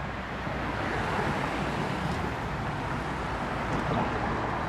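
Steady street traffic noise: an even rumble and hiss of passing cars, swelling slightly a couple of times.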